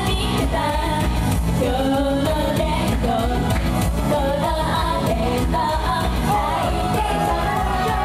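Idol group singing a J-pop song live over a loud backing track with a steady beat.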